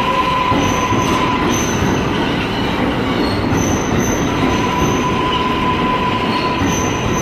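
New York City subway train running along the track through the station, a steady loud rumble of wheels on rail. High-pitched wheel squeal comes and goes on top, one tone dropping out about a second in and returning about four seconds in.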